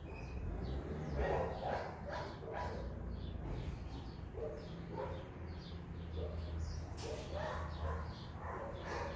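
Cat purring steadily while being stroked, with short animal calls over it about once a second.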